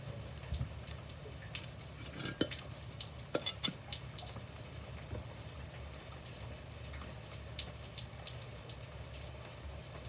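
Rain falling on a garden's brick-paved path and broad-leaved plants: a steady patter with scattered louder drips and taps, several bunched together a few seconds in and another near the end.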